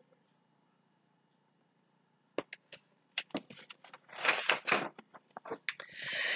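A hardcover picture book being handled and its pages turned: a run of light clicks and paper rustles that starts a couple of seconds in and grows denser, after a quiet start.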